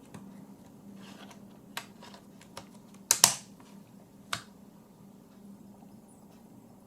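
A few sharp clicks from handling a Canon 5D Mark III camera body, with a loud double click about three seconds in.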